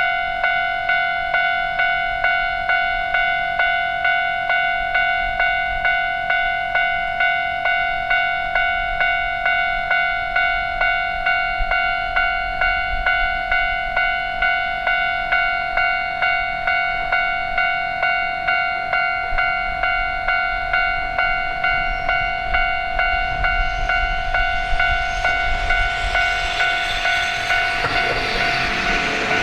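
Japanese railroad crossing warning bell ringing its steady, evenly repeated "kan-kan" tone. An approaching train's rumble and rail noise grow louder over the last several seconds.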